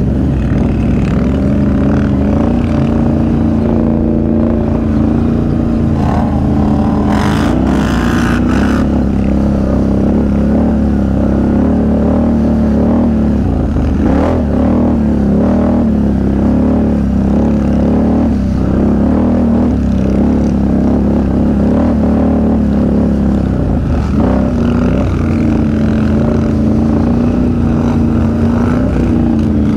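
Can-Am Outlander XMR 1000 ATV's V-twin engine running under way at a steady pace, its pitch rising and falling a little through the middle. A few brief rattles come about eight seconds in.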